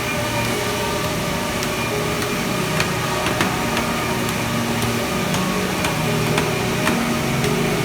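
Automatic crosscut saw for cutting defects out of wood running steadily, with scattered sharp clicks and knocks from the machine.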